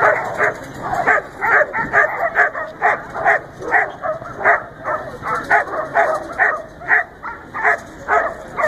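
A dog barking over and over, about two to three barks a second without a break.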